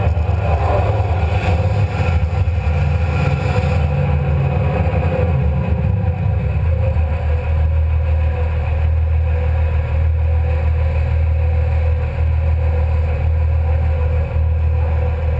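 Komatsu PC300 excavator's diesel engine running, heard from inside the cab. For about the first four seconds the sound is busier as the boom lowers the bucket under hydraulic power. It then settles into a steady run as the bucket rests on the ground.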